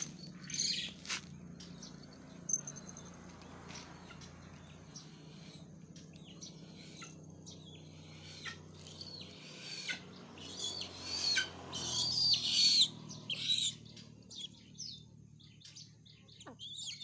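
Young white-bellied sea eagle giving repeated high-pitched, squealing calls, sparse at first and then coming thick and loud about ten seconds in. These are the food-begging calls of an eaglet coming to meat held on the glove.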